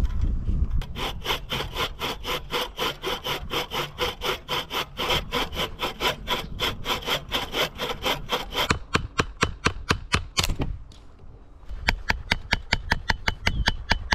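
Wooden-framed bucksaw cutting across a small log by hand, quick even push-pull strokes at about four a second. The strokes stop for about a second near eleven seconds in, then start again.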